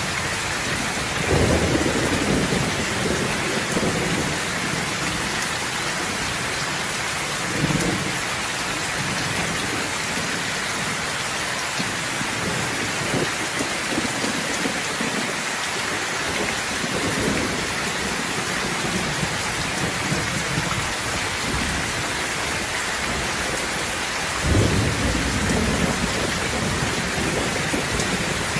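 Steady heavy rain hissing, with rolls of thunder rumbling low about a second in and again near the end, and a shorter rumble in between.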